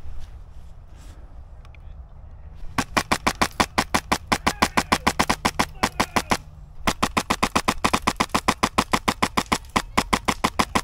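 Airsoft gun firing on full auto in two long strings of rapid, evenly spaced shots, about eight a second, with a brief pause between the strings.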